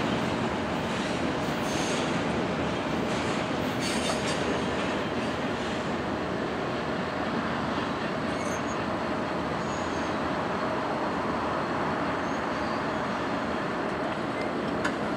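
Steady rolling noise of a freight train's double-stack intermodal cars on the rails as the end of the train moves away.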